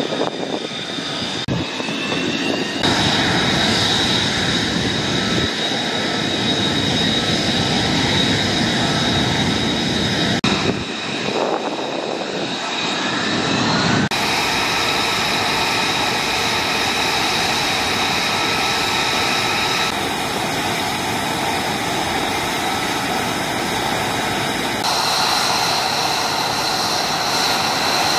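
F-35B Lightning II's Pratt & Whitney F135 jet engine running on the ground: a steady high whine with several held tones over a rushing roar. The mix of tones changes abruptly a few times.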